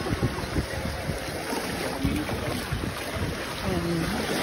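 Wind buffeting the microphone in uneven gusts, over the wash of small lake waves running up onto the sand.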